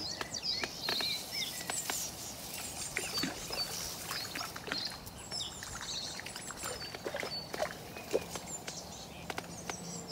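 Small birds chirping again and again in short, high calls, with scattered clicks and knocks from a fishing rod and reel being handled while a fish is played in.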